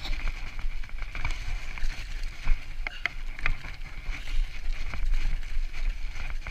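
Mountain bike rolling down a snowy, slushy trail: tyre noise on snow and slush with the bike rattling over a steady low rumble, and a cluster of sharp clicks about three seconds in.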